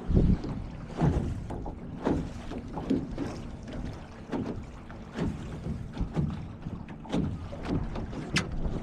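Water sloshing and slapping against a small sailboat's hull in irregular surges about once a second, with wind buffeting the microphone.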